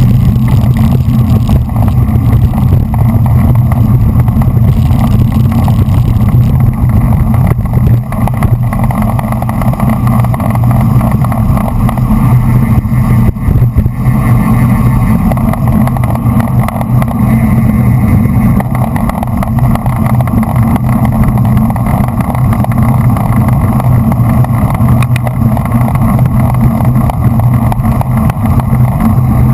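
Wind rushing over a GoPro's microphone on a road bicycle at racing speed: a loud, steady low rumble.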